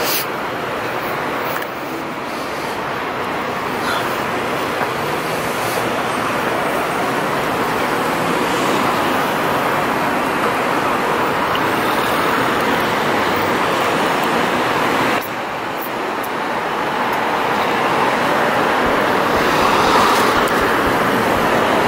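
Steady road traffic noise, with sudden drops in level about two seconds in and again about fifteen seconds in, where the recording cuts.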